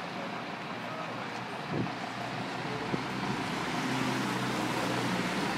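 Street traffic noise, with a motor vehicle's engine humming more strongly from about two seconds in.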